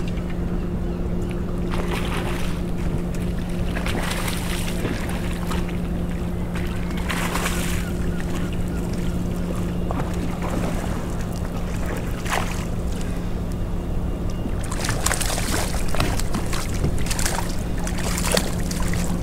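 A steady low engine hum, with intermittent splashing and rustling as a hooked fish is played and landed at the side of a small boat. The splashing comes in short bursts and is busiest near the end.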